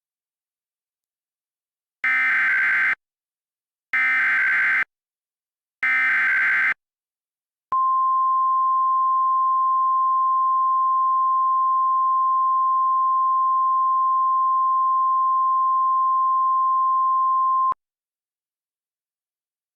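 Emergency Alert System SAME header: three bursts of digital data tones about two seconds apart, followed by the NOAA Weather Radio 1050 Hz warning alarm tone held at one steady pitch for about ten seconds before it cuts off abruptly. Together they mark the start of a new severe thunderstorm warning.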